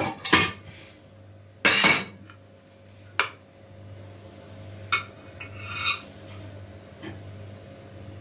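Metal cake server scraping and clinking against a baking tray as slices of cake are cut and lifted out, with a clack as a slice is set on a plate; the loudest scrape comes about two seconds in and a sharp click about a second later. A low steady hum sits underneath.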